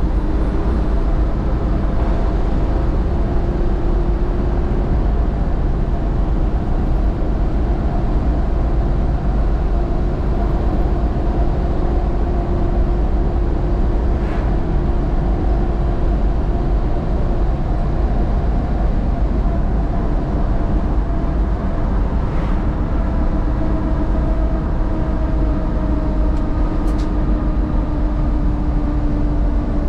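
A 1986 Jeep Grand Wagoneer with an AMC 360 V8 drives at a steady cruise, heard from inside the cabin. Heavy low road and drivetrain rumble is overlaid by an engine note that drifts slowly in pitch, and a few faint clicks sound in the second half.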